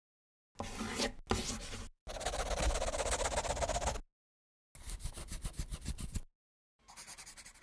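Pencil scribbling on paper: three bursts of fast scratchy strokes, each one to two seconds long with short silent gaps between them, then fainter scratching near the end.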